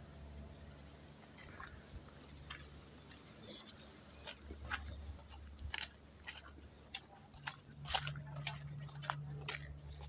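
Footsteps crunching on a gravel trail, short crisp steps about two a second, starting sparsely and becoming steady from about four seconds in, over a low steady rumble.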